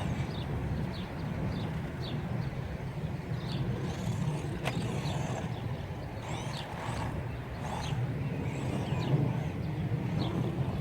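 Battery-powered 1/12-scale off-road RC car running at speed, its electric motor whining in rising and falling glides over a steady rumble from its drive, with one sharp click a little under five seconds in.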